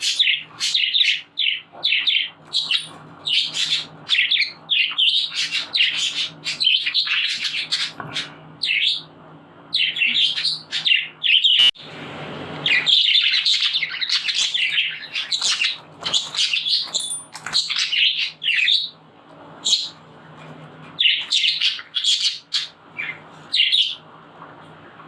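Budgerigars chirping in rapid clusters of short, high chirps, with brief pauses between the clusters.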